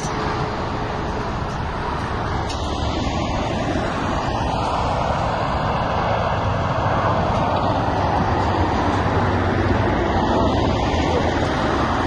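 Steady outdoor roadside noise: a dense rumble and hiss that holds level throughout, with no distinct tones or separate events.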